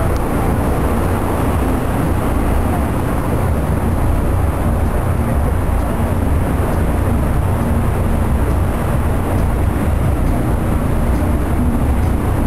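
Steady low rumble and noise aboard a moving ship, heard from its deck, with no breaks or separate events.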